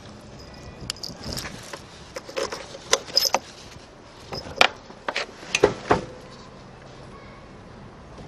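A key and its bead-chain keyring jangling at the scooter's ignition: a string of light metallic clicks and knocks between about one and six seconds in, then only a low background. The engine is not running.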